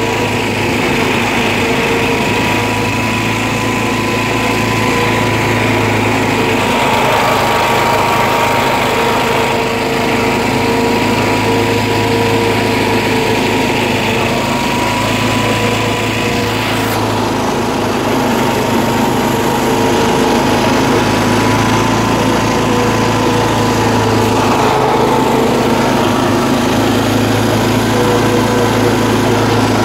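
Old John Deere riding lawn tractor's engine running steadily under way.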